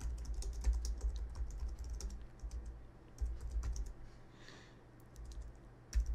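Typing on a computer keyboard: quick runs of keystrokes for the first few seconds, a short pause, then a few sharper key presses near the end as a new line is started.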